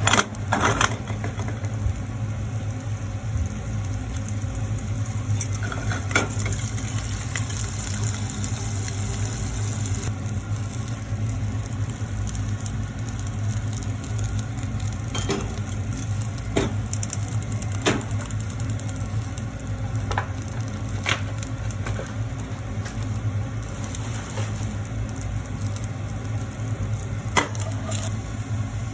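Cooking at a stove: a utensil clicks against a pan now and then over a steady hiss of food frying and a constant low hum.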